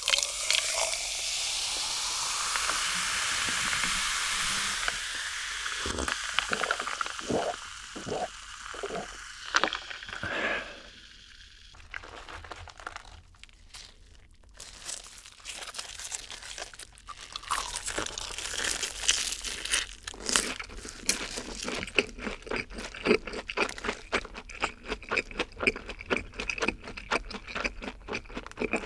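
Cola poured over ice into a glass jar, fizzing for the first few seconds, followed by a short run of separate sounds. From a little past halfway, crisp breaded long cheese sticks are bitten and chewed close to the microphone, with rapid crunching.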